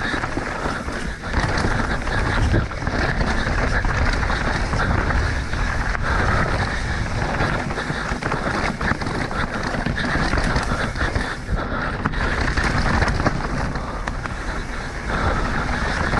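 Mountain bike ridden fast down a dirt trail: wind rushing over the microphone, tyres on the dirt, and the bike rattling and clattering over bumps the whole way.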